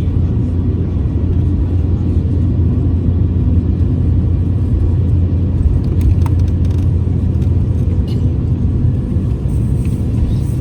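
Steady low rumble of airliner cabin noise, the engines and air system heard from inside the cabin while the plane is still on the ground.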